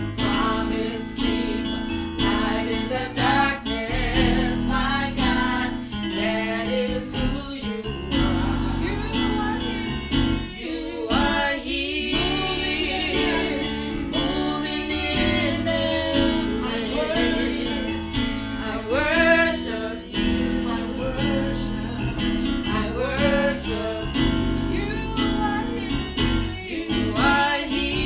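Gospel worship song: women's voices singing over a steady instrumental accompaniment.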